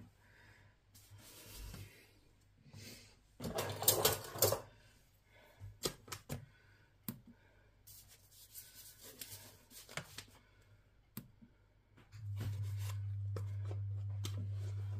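Scattered rustles and clicks of a paper flour bag being handled, with a louder paper rustle about four seconds in. About twelve seconds in a steady low hum starts.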